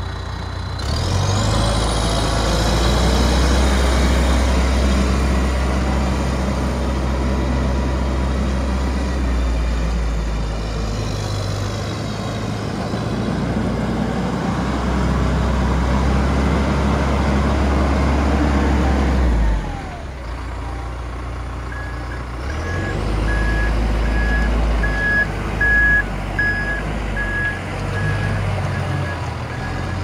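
John Deere 310L EP backhoe loader's 69 hp diesel engine revs up with a rising whine about a second in and runs hard as the machine drives, then eases off for a couple of seconds before picking up again. A reversing alarm beeps steadily over the last several seconds.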